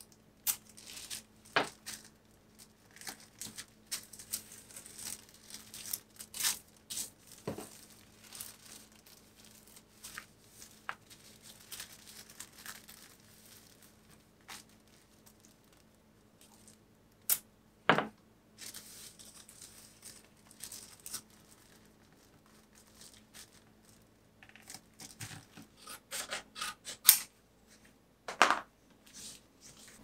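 Washi tape peeled off its roll and torn by hand, with the paper envelope rustling and crinkling as it is handled: a run of short sharp rips and crackles, with a few louder tears about two thirds through and near the end.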